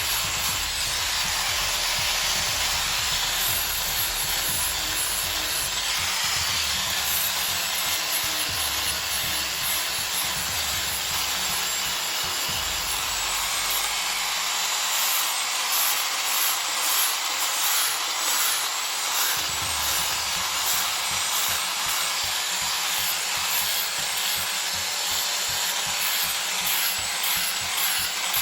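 Power sander running steadily against the wood of a large tree root, abrading its surface, with a fast pulsing flutter in the last third.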